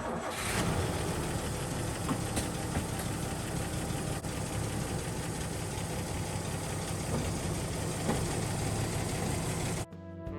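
A vehicle engine idling steadily, cutting off abruptly near the end.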